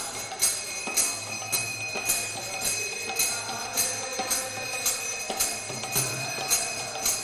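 Kirtan accompaniment with no singing: brass hand cymbals (kartals) struck in a steady rhythm, about two strikes a second, over a continuous bright metallic ringing.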